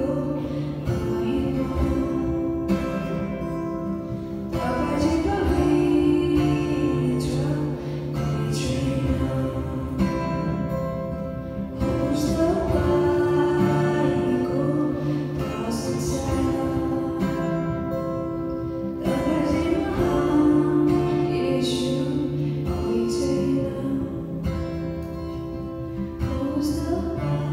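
A woman and a man singing a slow worship song as a duet over a strummed acoustic guitar, in long held phrases.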